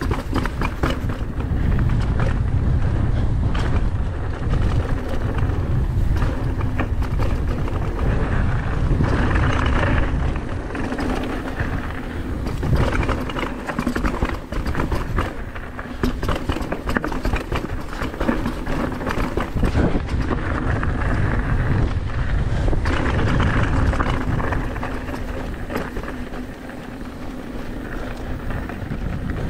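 Canyon Torque AL mountain bike ridden fast down a dirt and stone downhill trail: tyres rumbling and crunching over the ground, with constant clattering and rattling from the bike over bumps and rocks. A low wind rumble sits on the chest-mounted microphone, and the noise eases off briefly about halfway through and again near the end.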